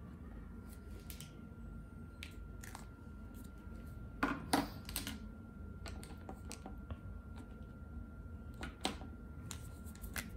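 Posca paint markers handled on a wooden table: scattered plastic clicks and knocks, loudest in a cluster about four seconds in and again near nine seconds.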